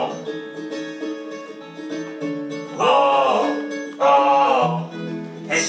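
Pop song intro: plucked strings playing a bouncy accompaniment, with two short vocal phrases coming in about three and four seconds in.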